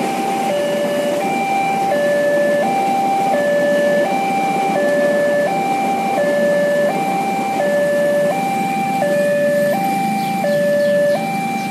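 Railway level-crossing warning alarm sounding its electronic two-note signal, a lower and a higher note taking turns, each held about two-thirds of a second, warning that a train is passing. Under it runs the steady rumble of the passing train and the waiting traffic.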